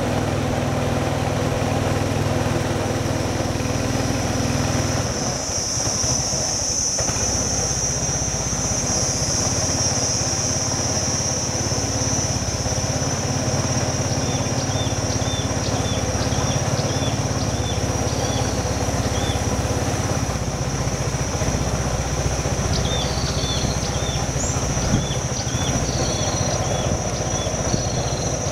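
Small wooden motorboat's engine running steadily while under way, its note shifting about five seconds in. Above it sit a high steady whine and, from about halfway, short repeated high chirps.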